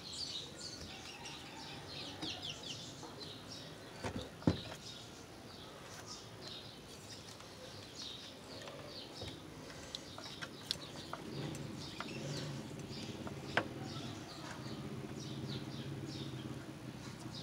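Small birds chirping in the background throughout, with a few sharp clicks from hands handling the pump's plastic capacitor and cable. A low steady hum comes in about two-thirds of the way through.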